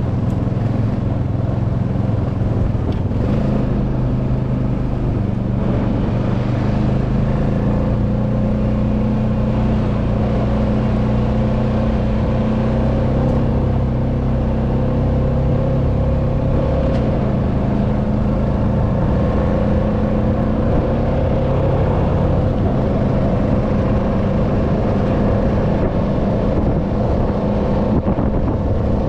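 ATV engine running steadily while under way, holding a near-constant speed with only small rises and dips in pitch.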